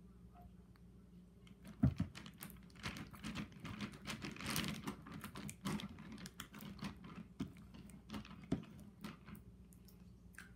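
Sticky homemade slime being squeezed and kneaded in the hands, making rapid, irregular wet clicks and crackles. A single thump comes about two seconds in.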